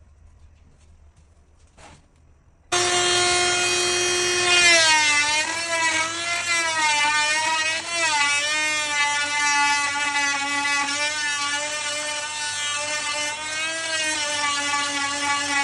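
An electric power tool is switched on about three seconds in. It runs at a steady high pitch for a couple of seconds, then its pitch drops and wavers up and down as the tool is put to work under load.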